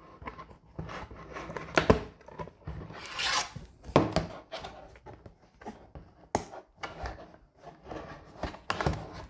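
The thin white plastic sheet of an IKEA Variera bag dispenser being handled and bent into a tube: plastic rubbing and scraping, with a scatter of sharp clicks and knocks and a longer scrape about three seconds in.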